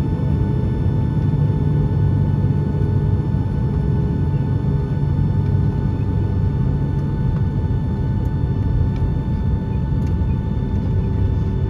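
Boeing 757-200 jet engines heard from inside the cabin while taxiing: a steady low rumble with a constant whine over it.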